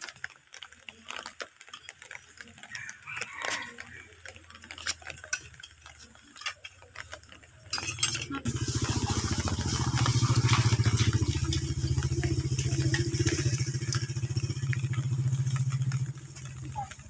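Metal spoons clinking and scraping in a plastic bowl, in scattered small clicks. About halfway through, a loud steady low rumble with hiss starts and covers them, then drops away shortly before the end.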